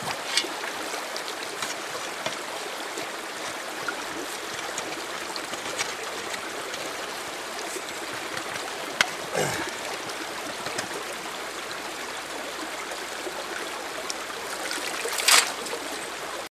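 Creek water running over rocks, a steady rushing flow, with a few brief sharp sounds on top, the loudest near the end.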